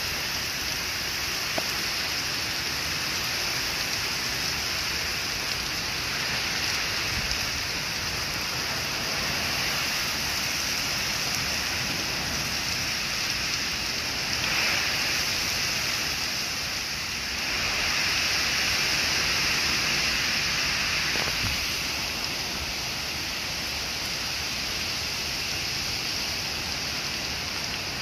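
Heavy rain pouring down, a steady hiss that swells louder for a few seconds past the middle.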